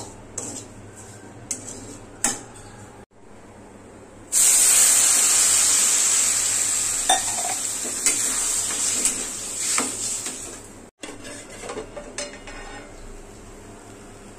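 A metal spatula scrapes and taps a steel kadai as semolina is roasted with vegetables. About four seconds in, water poured into the hot pan sets off a loud hiss that starts suddenly and slowly dies away over several seconds. Light spatula taps and scrapes follow near the end.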